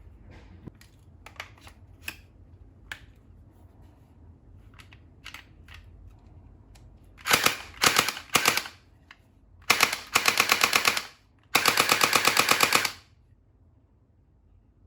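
Toy gel ball blaster going off in rapid-fire bursts: three short bursts, then two longer ones of about a second each, at roughly a dozen shots a second. Before that come a few light clicks as the blaster is handled.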